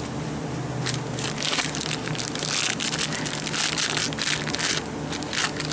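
Plastic packaging crinkling and rustling in a dense crackle that thickens after about a second, over a steady low hum.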